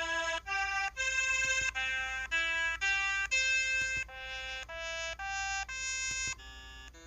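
EV-W350 mobile phone's keypad button tones: a run of about a dozen short electronic notes at changing pitches, roughly two a second, one note per key sound.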